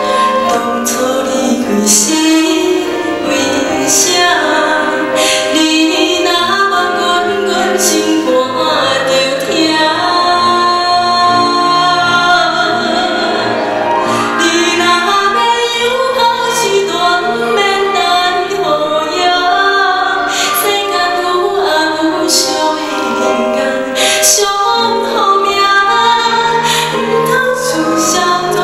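A woman singing a slow Taiwanese-language ballad into a microphone, with grand piano accompaniment.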